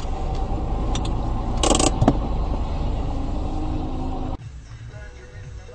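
Road and engine noise of a car heard from inside the cabin through a dashcam microphone: a steady low rumble with a few clicks and a brief harsh burst of noise about one and a half seconds in. The sound cuts off suddenly about four seconds in, leaving a much fainter background.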